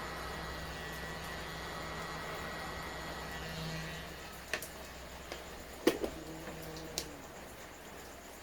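Hot-air rework station blowing steadily while desoldering a component from a laptop motherboard, with a low steady hum. It shuts off about four seconds in, followed by three sharp clicks of tools on the board.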